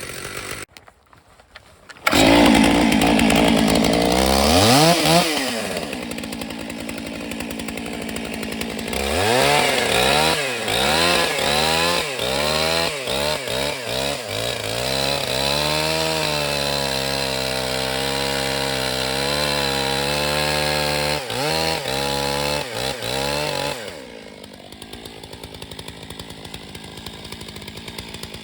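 Two-stroke chainsaw running hard: it revs up, blips up and down several times, holds a steady high speed, then blips again before dropping to a quieter, lower running near the end. There is a brief drop-out about a second in.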